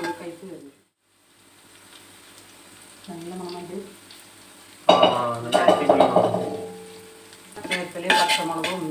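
A metal spatula scraping and stirring sliced onions, shallots and green chillies as they fry in a wide metal pan, with the oil sizzling underneath. The onions are being sautéed until they wilt, before the ground paste goes in. The stirring comes in bursts, the loudest about five seconds in.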